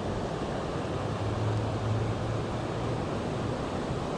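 Steady rushing noise of a river waterfall, with a faint low hum underneath that swells and fades.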